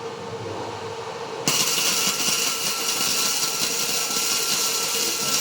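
Wire-feed welder arc crackling and hissing steadily as a bead is laid, starting suddenly about a second and a half in over a steady electrical hum. The welder is now turned up to a higher amperage, so the arc runs evenly rather than sputtering.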